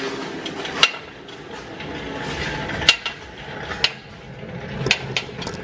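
Irregular sharp metallic clanks and knocks, about five spread over a few seconds, from a 1JZ engine being pulled along on a wheeled cart.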